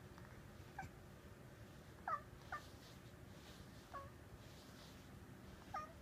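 Domestic cat making five short, falling chirps at a bird outside the window: the chirping a cat makes when watching prey it cannot reach.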